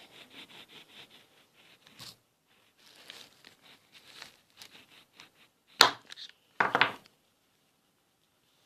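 Handling of a correction pen and a kitchen knife on a surface: scattered light clicks and rubbing, one sharp knock about six seconds in, and a short clattering burst just after it.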